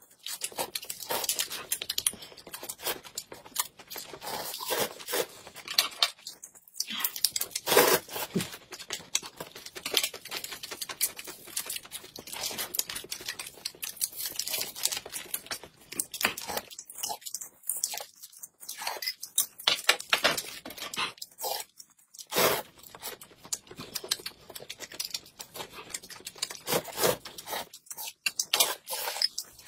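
Close-miked eating sounds: noodles slurped, mouth chewing, and small plastic snack packets crinkling and being torn open, as a run of sharp crackles and rustles.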